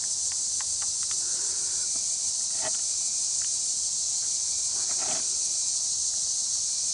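Steady, high-pitched chorus of insects such as crickets, with a few light crackles, likely footsteps on forest litter, near three and five seconds in.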